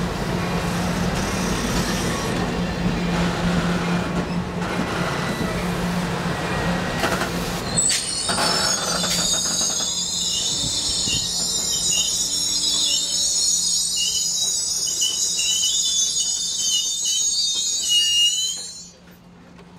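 Amtrak Pacific Surfliner bilevel passenger coaches rolling slowly past, their wheels rumbling on the rails. About eight seconds in, a high-pitched squeal of wheels and brakes starts and goes on for about ten seconds. It cuts off suddenly near the end as the arriving train comes to a stop.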